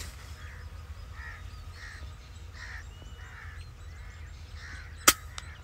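A single sharp gunshot about five seconds in, the loudest sound, fired at doves. Before it, birds keep up a string of short, harsh caws, a little more than one a second.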